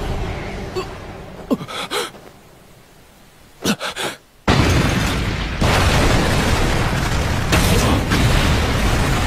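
Anime sound effects of a volcanic domain taking shape: a rumble that fades away over the first few seconds, a few sharp hits, a short hush, then a sudden loud rumbling blast about four and a half seconds in that keeps going.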